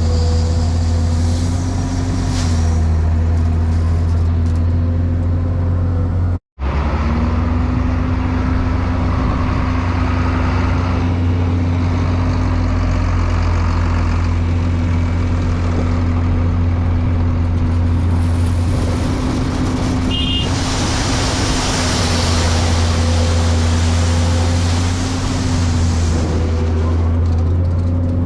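A large engine running steadily at a constant speed, a heavy low hum that barely changes. It cuts out completely for a split second about six and a half seconds in, then carries on the same.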